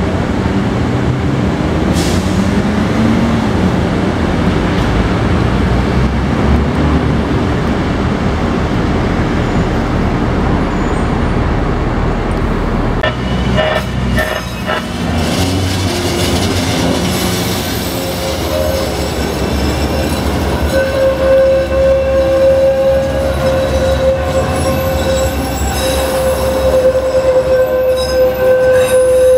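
LA Metro light-rail train (Siemens P2000 cars) rolling along street track with a steady rumble from its motors and wheels. In the later part a steady high-pitched metal squeal sets in and holds.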